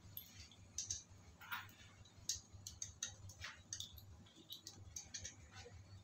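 Faint, irregular light clicks and ticks of small metal engine parts being handled and fitted at the cam chain and cylinder head of a Yamaha Mio Sporty engine, over a low steady hum.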